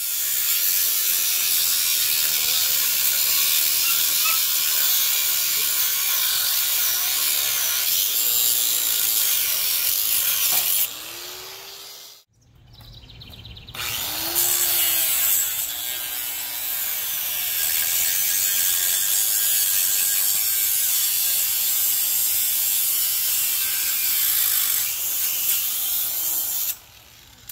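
Electric angle grinder with a thin metal-cutting disc cutting through the steel leg of an antenna tower at ground level, a loud steady grinding hiss. It stops briefly a little before halfway, then starts again and cuts off near the end.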